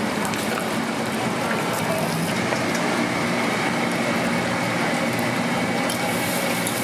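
Steady din of a busy street-food stall: a continuous dense hiss with indistinct voices mixed in. A faint thin high tone joins about two seconds in.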